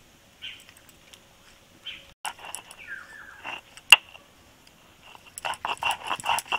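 A dog barking: a few short yaps, then near the end a rapid run of barks, about four a second. A single sharp knock comes a little before the end.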